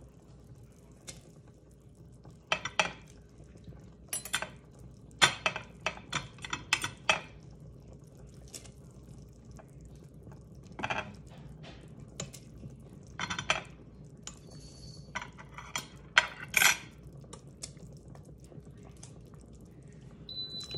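A spoon clinking and scraping against the Instant Pot's stainless steel inner pot as shredded chicken is stirred into the orzo soup, in irregular clusters of sharp clinks with pauses between. A steady high beep starts right at the end.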